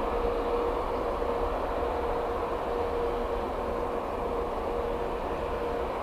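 Airbus A380's four turbofan engines droning steadily on final approach, with a constant hum tone running through the noise.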